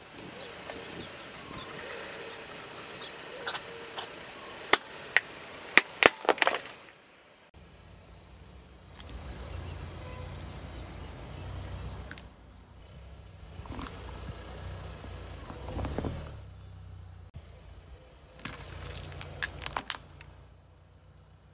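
Car tyre rolling over and crushing hard plastic toys: a series of sharp plastic cracks and snaps, loudest in a cluster a few seconds in and again near the end. Between them, the low rumble of the car and its tyres creeping over asphalt.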